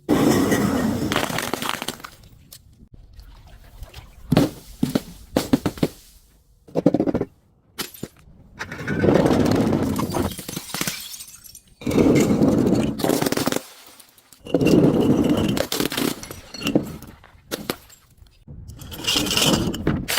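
Objects being crushed and broken: about five loud stretches of crunching, each lasting a second or two, with scattered sharp cracks in between.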